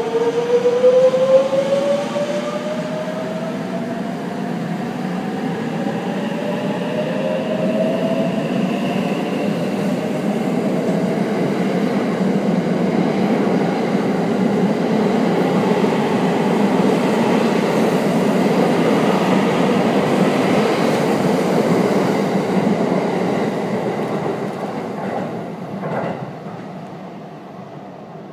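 JR West Thunderbird limited-express electric train accelerating along the platform. The motors' whine rises steadily in pitch over a growing rumble of wheels on rail. The sound then fades as the last cars pass.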